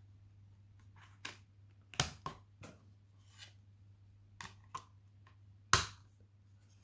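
Blu-ray discs being handled and pressed back onto the centre hubs of a steelbook's clear plastic disc trays. A scattered string of light clicks and taps, the loudest near the end as a disc is pushed down onto its hub.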